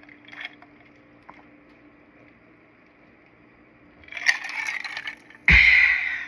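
Crunchy eating sounds from biting and chewing a toasted pizza toast close to the mic: a rustling crunch about four seconds in, then a louder, sudden crunch near the end.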